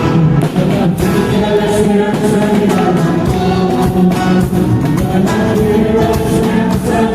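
Music: a group of voices singing a church song over instrumental accompaniment.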